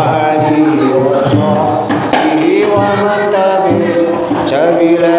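Group of voices chanting a devotional text together in a melodic line, accompanied by a steady rhythm of hand-struck large frame drums.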